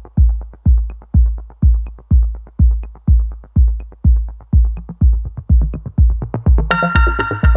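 Background electronic music: a steady kick-drum beat about twice a second, joined by a sustained synth chord near the end.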